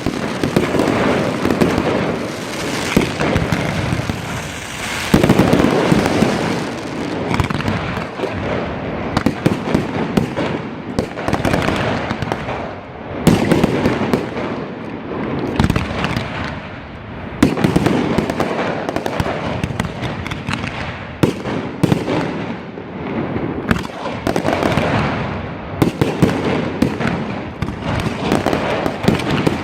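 Fireworks display: a dense, unbroken run of bangs and crackles, many bursts overlapping one another.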